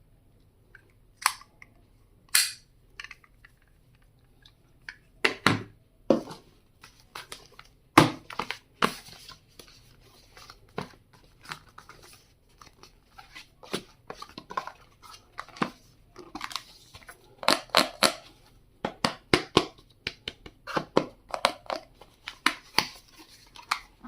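Stationery being unpacked by hand: plastic packaging crinkling and tearing, with many short clicks and knocks as items are handled. They come sparsely at first and thicken in the second half.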